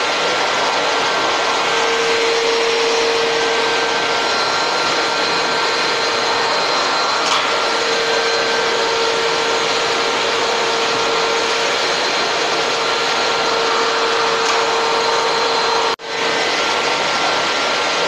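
Canister vacuum cleaner running steadily: a constant rushing hiss over a steady hum. It cuts out for an instant near the end and picks straight back up.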